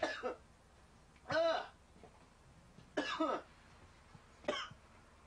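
A man coughing and hacking in four short fits, about a second and a half apart.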